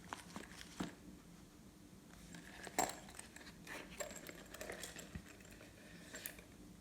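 Slime and its add-ins being handled: scattered small clicks and crinkly taps, the loudest about three seconds in.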